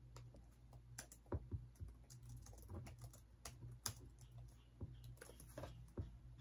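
Faint, irregular typing on a computer keyboard: scattered light key clicks.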